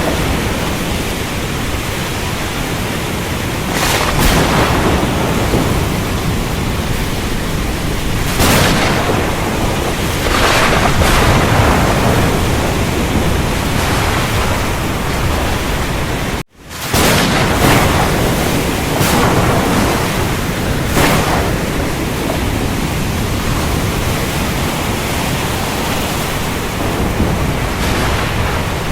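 Steady, dense rain hiss with louder swells coming every two to four seconds. About sixteen seconds in the sound cuts out for a moment, then comes straight back.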